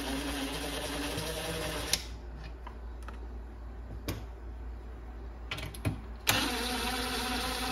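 Cordless drill-driver running on the screws of a speaker's woofer mounting in two steady spurts, one ending about two seconds in and another starting near the end, with a few light clicks of screws and handling between.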